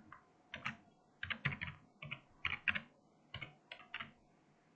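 Typing on a computer keyboard: a run of irregular keystrokes in small clusters as an email address is entered.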